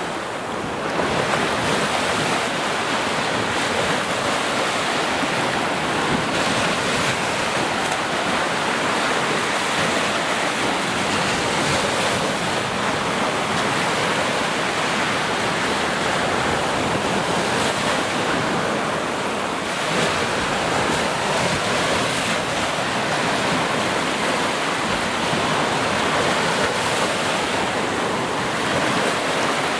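Steady rushing noise of ocean waves breaking on a shore.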